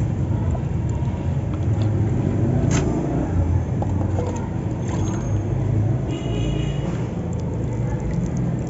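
A crumbly sand-cement block dipped and swirled in a plastic tub of water, with small splashes and drips, over a steady low rumble.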